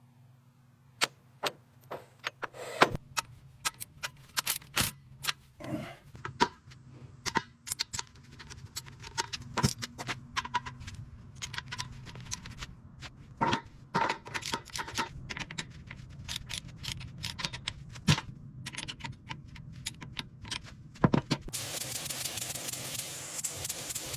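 Irregular sharp clicks and knocks of hand-tool work on car parts, over a faint steady hum. Near the end a steady hiss starts, like a spray gun or air line.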